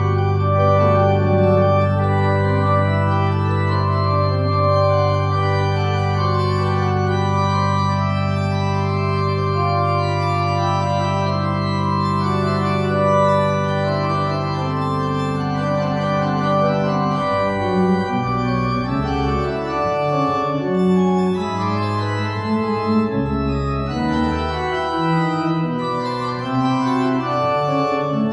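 Church organ playing: long held chords over a steady low bass for most of the first half, then the bass and chords begin moving note by note from about seventeen seconds in.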